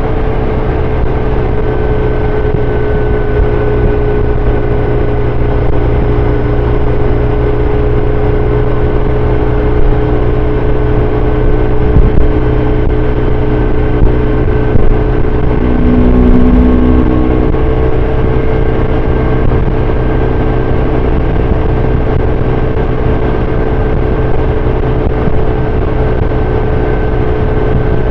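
BMW R1150RT's air-cooled boxer twin engine running steadily at cruising speed, heard from the bike with wind and tyre noise. About sixteen seconds in, a lower extra tone joins for a second or so.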